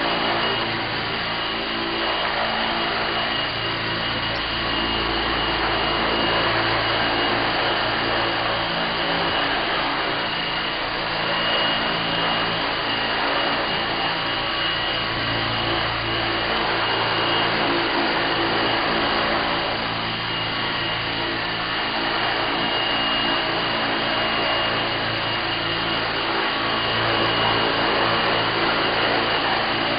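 Small electric RC helicopter hovering low: a steady high motor whine over the whoosh of its rotors, swelling and easing a little every few seconds as the throttle is worked.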